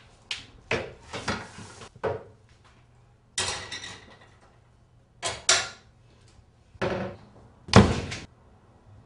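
A string of knocks, bumps and rustling scuffs, like things being handled around a room, ending in a loud heavy thud about eight seconds in.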